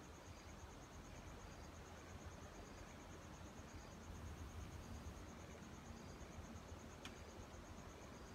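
Faint outdoor ambience: a steady, high, rapidly pulsing insect trill over a low rumble. A single sharp click comes about seven seconds in.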